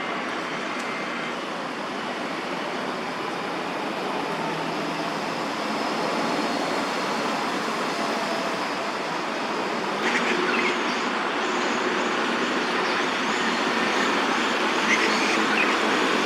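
Steady road-traffic noise from the surrounding city, growing a little louder, with a few faint high chirps from about ten seconds in.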